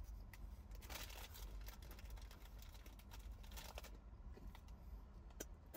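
Near silence: faint room tone with a low rumble and a few soft clicks.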